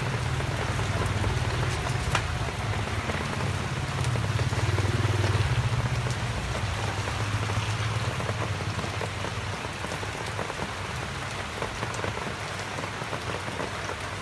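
Steady patter of rain falling on the street. A low engine hum from a passing motorbike sits under it and fades out about nine seconds in.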